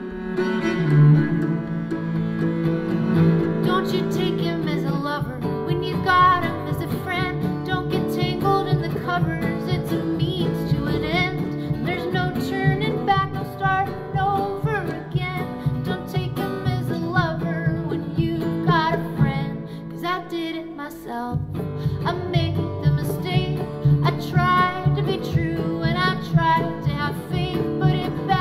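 A song played back through a Klipsch THE ONE II Bluetooth speaker: a singing voice over plucked and bowed strings with a sustained bass line, at a steady level.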